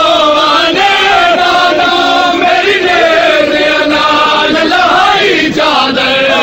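A group of men chanting a noha, a Shia lament for mourning, their voices overlapping in a continuous rise-and-fall melody.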